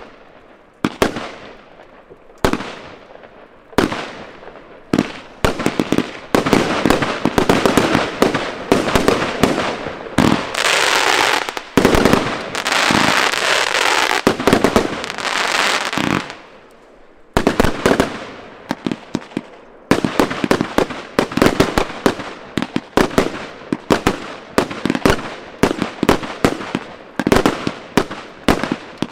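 Aerial fireworks firing and bursting. It opens with single bangs about a second apart, each trailing off in a crackle, then builds into a dense run of rapid bangs. Partway through there is a few-second stretch of continuous hissing crackle, and after a brief lull the rapid bangs start up again.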